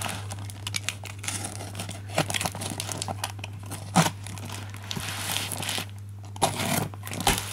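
A cardboard box being opened by hand, its tape and packaging crinkling and tearing in irregular bursts with sharp clicks, pausing briefly about six seconds in. A steady low hum runs underneath.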